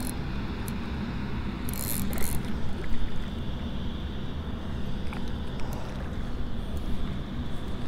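Wind buffeting the microphone in a steady low rumble. About two seconds in comes a brief rasping whirr from an Okuma Inspira spinning reel as line is wound in against a hooked mullet.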